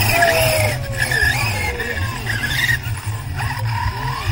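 Hobby-grade RC truck driving hard on loose dirt, its motor whining in gliding, mostly falling tones as the tyres slide and skid, over a pulsing low rumble.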